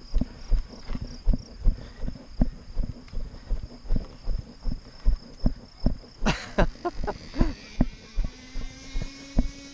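Footsteps on grass, about two and a half steps a second, each one a dull thud as the body-worn camera jolts with the stride. A thin, steady high-pitched whine runs under them until about two-thirds of the way through, then a brief rustling clatter breaks in, and a steady low hum starts near the end.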